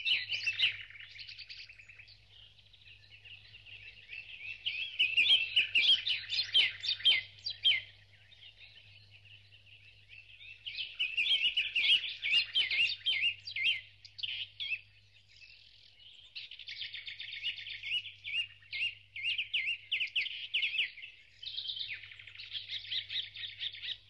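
Many small birds chirping and twittering in a dense, continuous chorus, loudest in stretches around five to eight seconds in and again around eleven to fourteen seconds.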